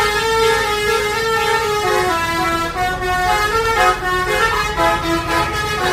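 Basuri multi-tone musical bus horn (telolet horn) playing a melody: several horn notes sounding together, moving from note to note every fraction of a second without a break.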